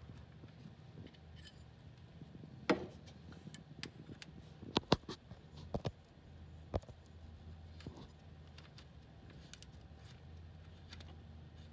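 Scattered light metallic clicks and taps of a crankshaft timing locking tool being fitted onto the timing-belt sprocket and its bolt started with a hex driver, the sharpest a quick cluster about five seconds in, over a steady low hum.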